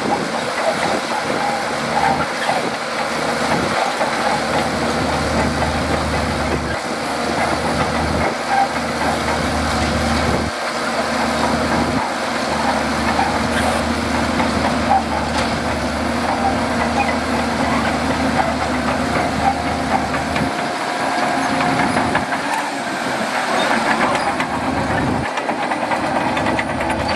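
Shantui DH17C2 crawler bulldozer working: its diesel engine runs steadily under load, with the noise of its tracks moving, as it pushes sand.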